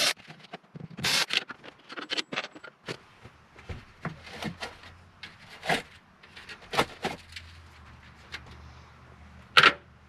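Cordless drill-driver running in short bursts, backing out the screws of an RV roof vent's interior trim ring, then clicks and knocks as the plastic trim is handled, with one sharp knock near the end.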